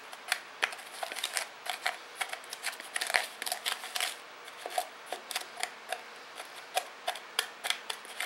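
A utensil clicking and scraping against a plastic bowl as dry seasoning rub is stirred, in quick irregular taps.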